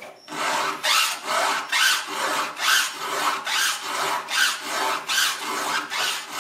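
Round file rasping through a chainsaw chain's cutter teeth in repeated hand strokes, about two a second, sharpening the cutters.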